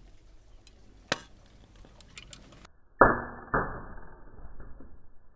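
Pistol crossbow shot: a sharp snap about a second in, then a loud impact about three seconds in and a second knock half a second later, as the aluminium bolt strikes a plastic fizzy-drink bottle.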